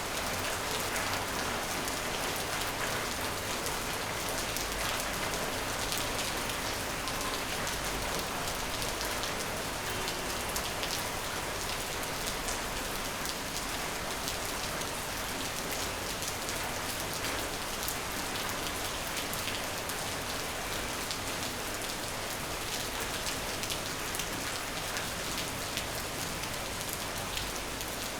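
Steady rain falling, a dense patter of drops on a hard surface at an even level throughout.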